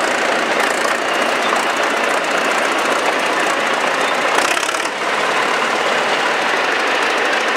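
ChTZ diesel crawler tractor moving past at low speed: the engine running with a steady knocking beat, mixed with the clatter of its steel tracks over gravel.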